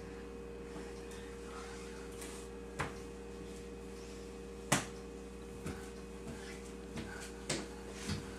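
Plastic toy pieces of a fridge farm set clicking and knocking as a toddler plays with them: about six short sharp clicks spread over several seconds, the loudest about halfway, over a steady low hum.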